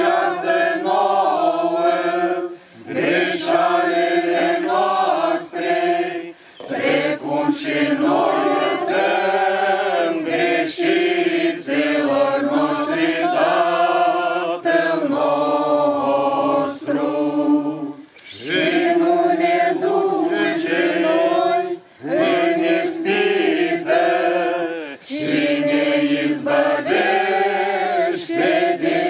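A choir singing unaccompanied, chant-like, in phrases of a few seconds with short breaks between them.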